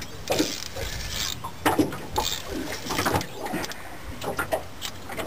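Fishing reel being worked against a heavy fish on a hard-bent rod: irregular mechanical clicks and creaks from the reel and rod under load.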